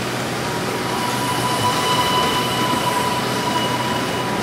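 Ride-on miniature railway train running on its track, with a thin, steady high squeal that starts about half a second in and stops near the end, over a constant hiss.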